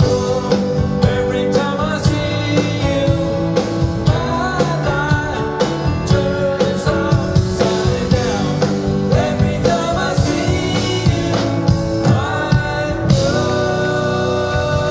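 Live band playing a pop-rock song with a male lead vocal, drums, electric guitar and keyboards, amplified through the hall's PA, with a steady drum beat throughout.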